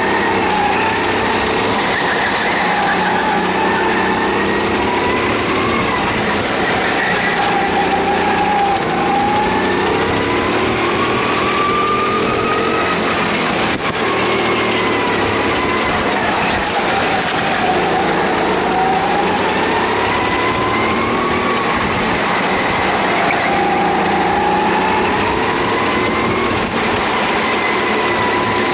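Go-kart engine running hard, its pitch climbing as it accelerates and dropping as it slows for corners, over and over.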